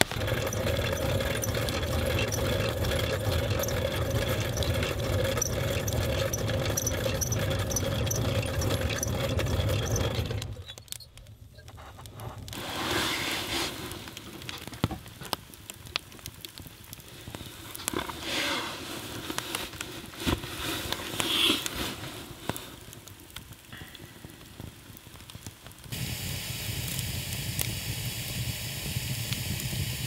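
Wood fire burning in a stove, hissing with scattered crackles and pops. About ten seconds in the sound drops abruptly to a quieter crackle, and a steadier hiss comes in near the end.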